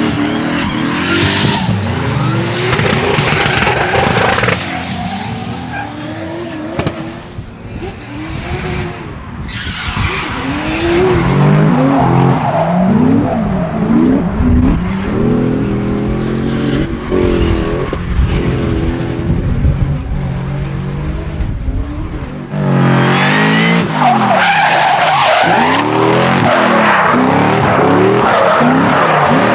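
Drift cars sliding at full throttle: engines revving hard and rising and falling in pitch, with tyres screeching. The screeching is loudest at the start and swells again late on, after a quieter stretch a few seconds in.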